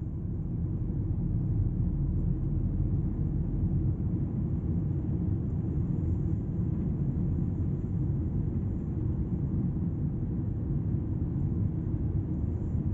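Camper van driving on the open road: a steady low rumble of road and engine noise.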